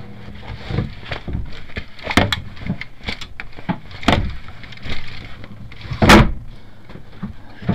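Irregular knocks, bumps and clunks of things being handled and shifted inside a small boat cabin, with the loudest thump about six seconds in, over a steady low hum.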